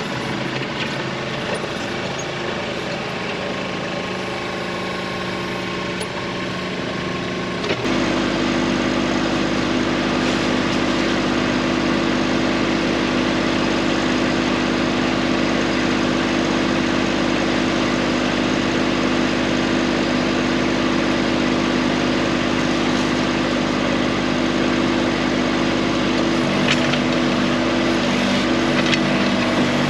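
An engine running steadily, stepping up to a louder, higher-revving run about eight seconds in and holding there.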